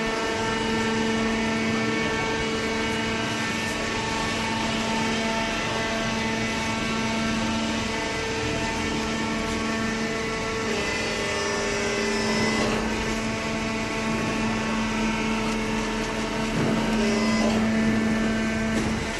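Hydraulic cardboard baler running: its motor and hydraulic pump give a steady hum with a whine that shifts slightly in pitch about eleven seconds in.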